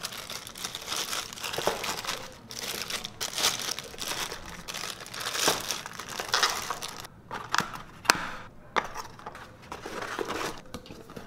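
Clear plastic bags crinkling as cellophane-wrapped cables are handled and pushed into a cardboard box, followed by cardboard packing inserts rustling and sliding into place. The crinkling is dense for the first several seconds, then gives way to sparser handling noises with one sharp click about eight seconds in.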